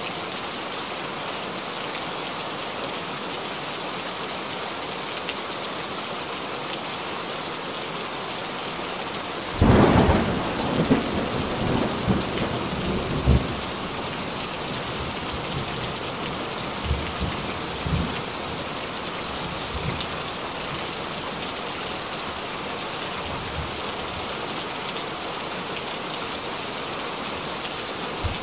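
Heavy rain falling steadily on a lake, an even hiss. About ten seconds in, a sudden loud clap of thunder breaks out and rumbles on for about four seconds, followed by a few fainter rumbles.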